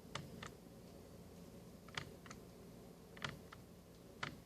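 Thermostat buttons being pressed one after another, a short sharp click with each press, about seven presses at uneven spacing as the cooling set temperature is stepped down.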